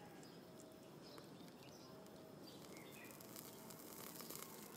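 Near silence: faint outdoor background with a few brief, faint bird chirps.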